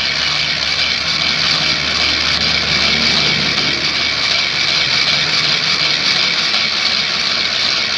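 Small blower running steadily, forcing air through a pipe into a charcoal fire: an even whirring hiss over a faint low hum.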